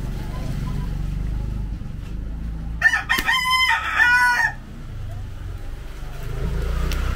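A rooster crowing once, a call of just under two seconds that starts about three seconds in, over a low steady rumble.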